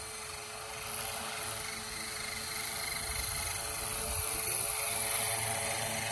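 Propellers of a test-bed flying machine running, a steady buzz with a constant whine that grows louder over the first few seconds.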